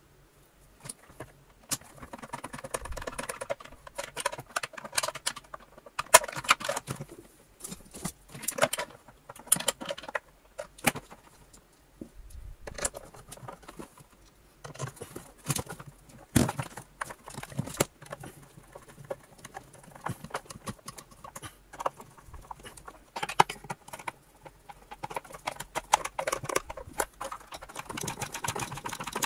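A screwdriver driving the motor's remaining mounting screws into the vacuum cleaner chassis: irregular clicks, taps and scrapes of the tool, screws and parts being handled.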